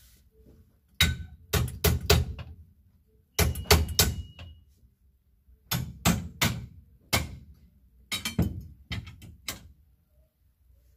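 Clothes hangers clacking against a display rail as garments are slid along and rehung: sharp clacks in four quick clusters.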